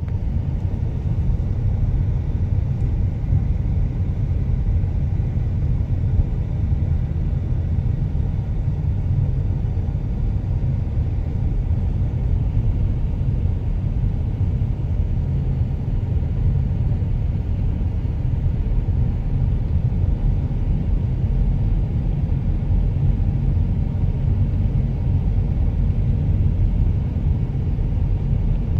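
Steady low rumble of a car's road and engine noise while driving, even throughout with no distinct events.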